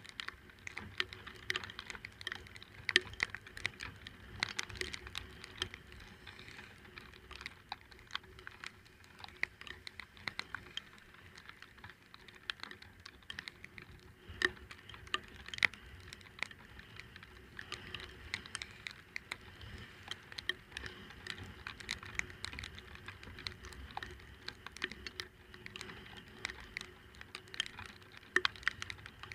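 Irregular sharp ticks of raindrops striking the camera casing, some louder than others, over a faint low rumble from the scooter ride.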